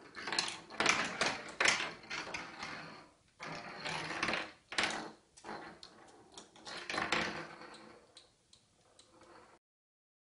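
A kitten's claws scrabbling and scraping on the slick surface of an empty bathtub: an irregular run of sharp scratchy clicks.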